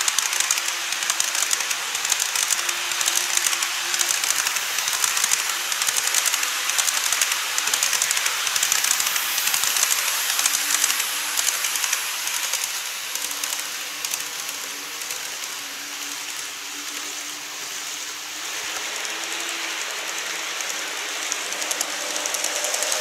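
Model electric trains running on model railway track: a steady fine rattle of wheels on the rails with a faint, wavering motor hum. The sound eases off a little in the middle and grows louder again near the end as another train comes close.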